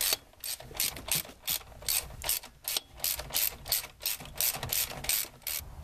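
Hand socket ratchet clicking in quick, even back-and-forth strokes, about three a second, as a bolt on the engine mount bracket is run down tight.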